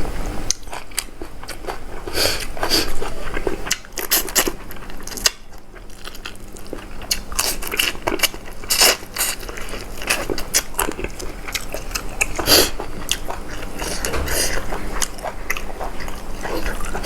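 A person eating close to the microphone, with irregular biting, chewing and crunching sounds throughout.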